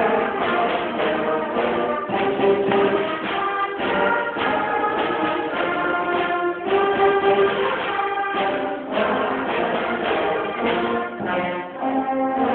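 Concert band playing, with full held chords that change every second or so and a brief drop in loudness near the end.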